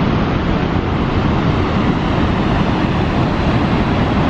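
Niagara's Horseshoe Falls pouring: a loud, steady rush of falling water.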